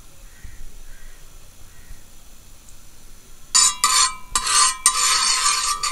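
Metal spatula scraping across a flat iron tawa griddle in a run of quick strokes, spreading cooking oil, starting about three and a half seconds in after a quiet start.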